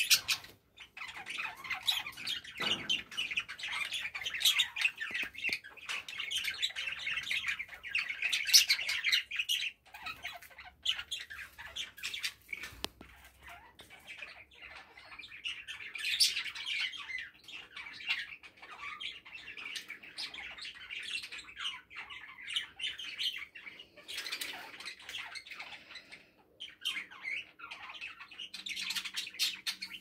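Budgerigars chattering: a busy, rapid run of short chirps and squawks, easing off briefly about ten seconds in and again near the end.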